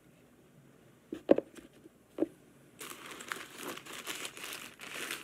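Two dull knocks about a second and two seconds in, then a paper food wrapper being crumpled and crinkled continuously from about three seconds in.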